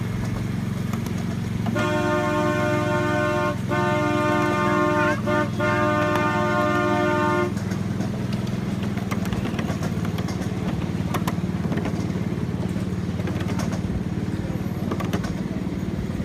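Miniature train's horn sounding a chord, a long blast of about six seconds broken by a few brief gaps, over the steady low running noise of the small locomotive.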